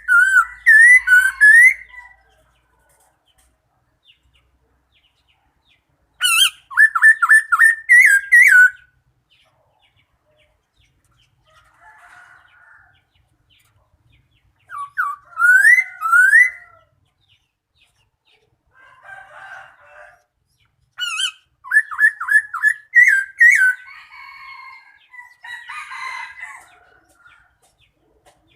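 A bird calling in four loud phrases, each a quick run of rising whistled notes, with fainter scratchy calls in between.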